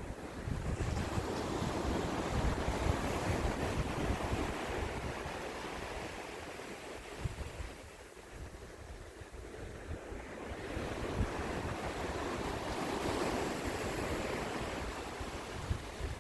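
Ocean surf washing on the shore in two surges, each building and fading over several seconds, with a low rumble of wind on the microphone.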